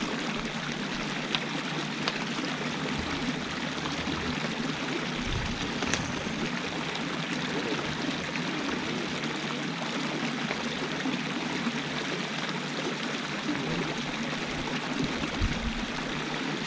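Shallow creek water running over flat rock ledges and spilling through a small cascade, a steady rush.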